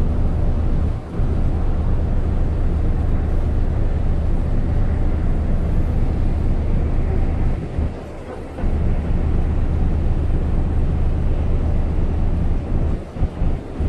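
Steady low rumble of a boat's engine mixed with wind buffeting the microphone, with a few brief dips where it drops away for a moment.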